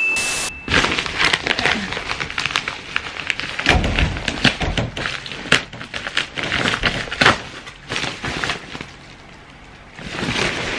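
Paper padded mailer being pulled and torn open by hand: a run of crinkling and tearing, with a short harsh burst at the very start and another tearing burst near the end.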